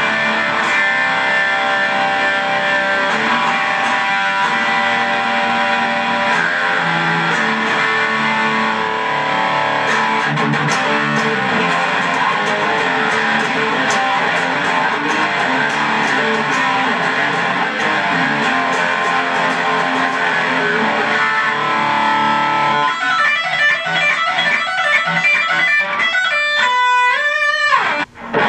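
Electric guitar played through a Boss Katana Mini amplifier, one continuous stretch of playing. From about two-thirds of the way in it turns into a fast run of quick repeated notes with bends, then breaks off briefly just before the end.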